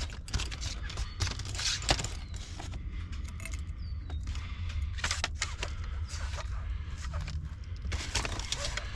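Scattered small clicks, clinks and scrapes of hands handling loose bolts and door parts, over a steady low hum.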